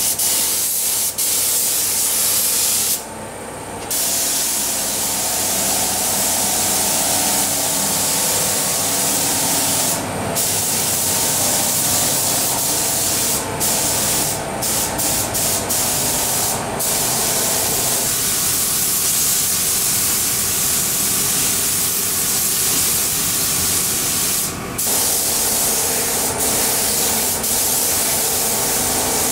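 Compressed-air paint spray gun hissing steadily as it sprays paint onto a car's bodywork. The hiss breaks off briefly several times.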